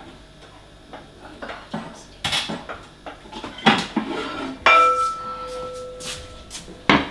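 Metal pots and pans clattering as they are shifted about in a low kitchen cupboard. About two thirds of the way through, one piece of metal cookware is struck and rings on with a clear tone for about two seconds.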